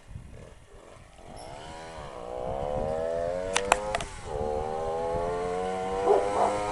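A Benelli Cougar 65cc two-stroke motorcycle approaching, its engine growing louder from about a second and a half in. The pitch dips and climbs again twice, and a couple of sharp clicks come about three and a half seconds in.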